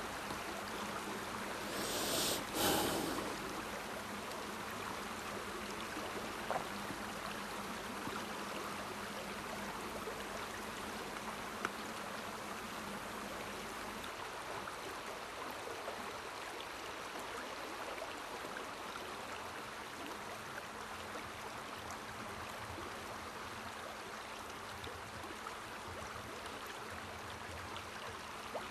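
Steady rushing of a river's running water, with a brief rustle about two seconds in.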